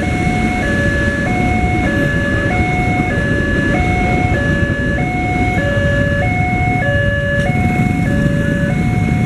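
Level-crossing electronic warning alarm sounding a repeating two-tone ding-dong, each tone held about two-thirds of a second, over the rumble of a passenger train rolling past.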